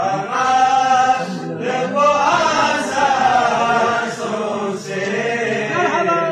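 A group of voices chanting a devotional kalam, the voices rising and falling in a sung melody.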